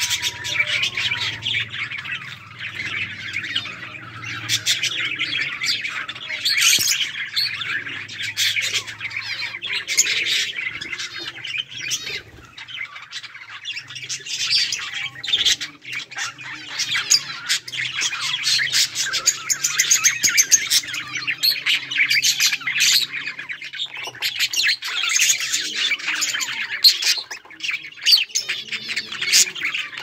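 A flock of budgerigars chirping, with many birds calling over one another without pause in a dense run of quick, high chirps and warbles.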